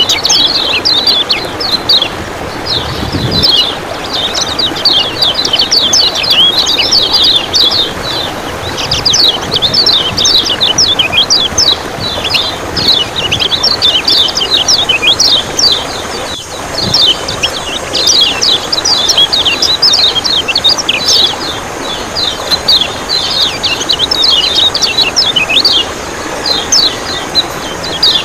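Yellow white-eye (kecial kuning) singing a rapid, almost unbroken run of fast high chirps, with only brief pauses. A steady rush of running water sounds beneath.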